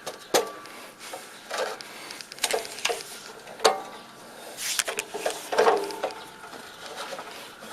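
A series of separate knocks and clanks from metal parts being handled, about six in all, some leaving a short metallic ring.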